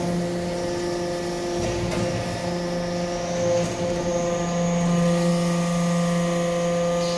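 Hydraulic pump and motor of a vertical metal-chip briquetting press running with a steady hum and whine, holding several constant pitches. The lower hum grows stronger about four and a half seconds in as the press works through its cycle.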